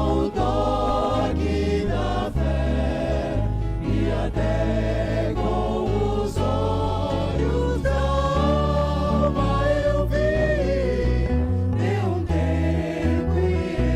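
Choir singing a Christian gospel song over a bass line that holds each note for about a second.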